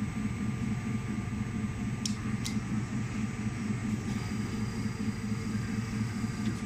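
Automatic arrow-vane fletching machine running with a steady hum and faint steady tones above it, and two sharp mechanical clicks half a second apart about two seconds in.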